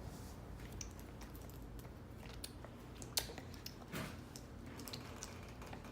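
A baby's mouth clicks, tongue clicking made at irregular intervals, the loudest a little over three seconds in.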